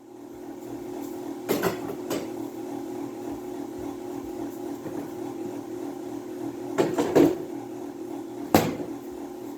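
Electric mixer motor running steadily, a constant hum. Short knocks land on top of it about a second and a half in, a couple around seven seconds in, and one more near the end.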